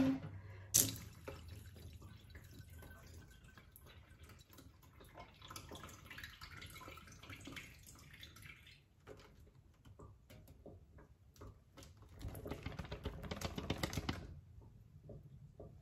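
Handling a wet, freshly rinsed split-leaf plant cutting: a sharp click about a second in, faint crackling and dripping as the roots and stems are turned, then louder rustling of the leaves for about two seconds near the end as the cutting is shaken.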